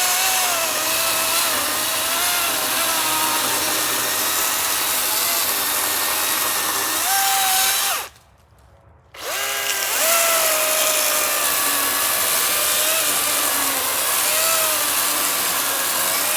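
Battery-powered electric chainsaw cutting through a log. Its high motor whine sags and wavers as the chain bites into the wood, rises briefly when the saw runs free about 7 s in, stops about 8 s in, then spins back up a second later and cuts again.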